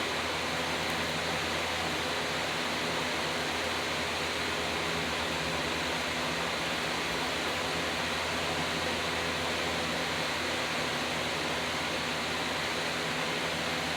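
Steady, even hiss that does not change, with a faint low hum beneath it.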